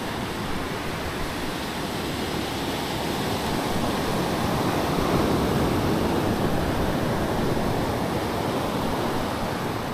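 Ocean surf breaking and washing up a sandy beach, a steady rush that swells in the middle and eases off near the end.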